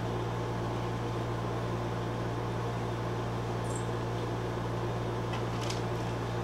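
A steady low hum of kitchen room tone, with a few faint light rustles from hands handling food and plastic near the end.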